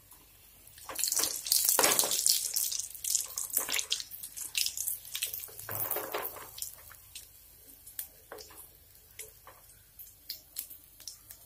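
Egg fingers deep-frying in a wok of hot oil: the oil hisses and crackles, loudest in the first few seconds and dying down after about seven seconds. Scattered sharp clicks and pops come through as a perforated steel slotted spoon lifts the pieces out.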